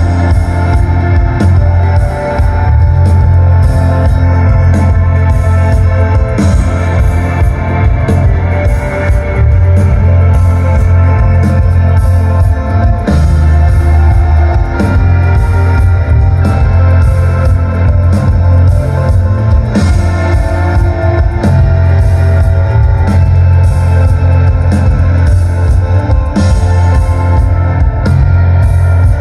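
Live rock band playing loud: several electric guitars over bass and a steady drum beat. It is heard from the crowd, and the bass dominates.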